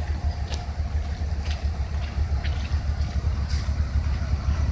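Heavy trucks' diesel engines running with a steady low rumble, with a few faint clicks about once a second.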